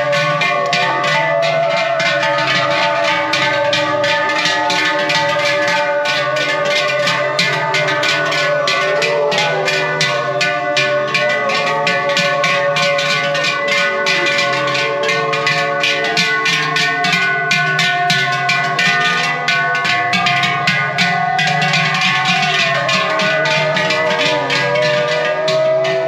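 Large Swiss cowbells clanging steadily, worn by walking cows and carried by herders. The sound is a rapid, even clatter of strokes over overlapping ringing tones.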